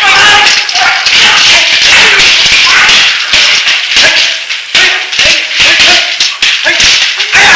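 Sword-fight soundtrack from a 1960s film: blades clashing in rapid, irregular strikes over music, loud and busy throughout.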